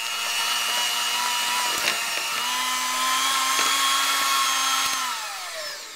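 Electric hand mixer running steadily, its beaters whipping a stick of butter in a bowl. About five seconds in it is switched off and its whine falls away as the motor spins down.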